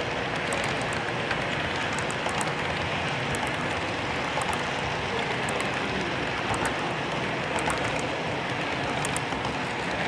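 HO scale double-stack well cars rolling past on model track: a steady rushing rumble with faint light clicks of the wheels every so often.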